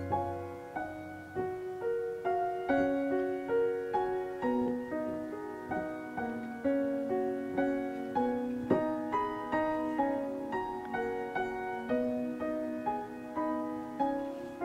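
Background piano music: a gentle tune of single notes struck at an even, unhurried pace.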